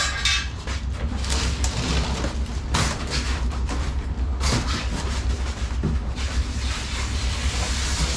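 Cardboard and packing material rustling and scraping as parts are pulled out of a shipping box, in irregular handling noises over a steady low hum.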